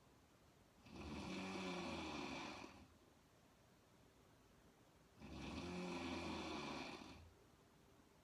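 A woman snoring in her sleep, lying on her back with her mouth open: two long snores, each nearly two seconds, about four seconds apart, with quiet breathing between.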